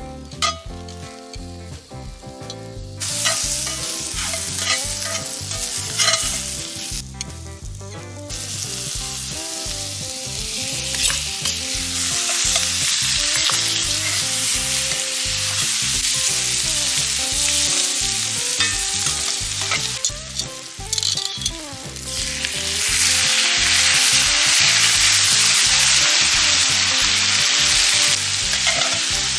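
Bamboo shoots sizzling as they cook on a hot pan or grill. The sizzle starts a few seconds in, drops away briefly, then comes back steadier and grows louder in the second half.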